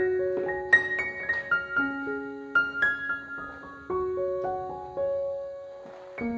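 Background piano music: a melody of struck notes, each fading after it is played, over lower sustained notes.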